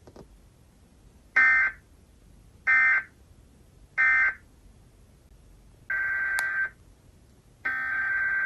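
Emergency Alert System SAME digital data bursts, a warbling modem-like screech: three short, identical bursts about 1.3 s apart, the end-of-message code that closes the test, followed by longer bursts of the same data sound about six seconds in and again near the end.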